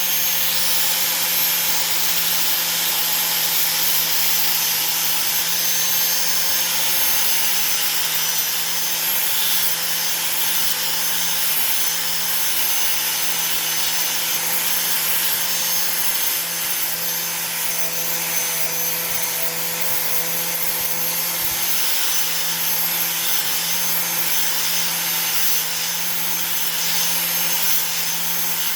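Angle grinder with a sanding disc running at a steady whine while it lightly sands the face of a brake pad. The pad is being roughened because its surface has glazed, which the owner takes for the cause of the brakes' squeal.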